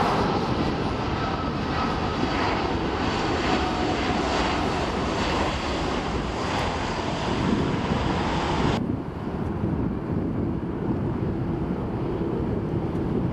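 Jet engines of a Boeing 767-300ER during its landing rollout: a loud, steady roar with a hiss reaching high. About nine seconds in, the hiss cuts off abruptly, leaving a duller, lower rumble.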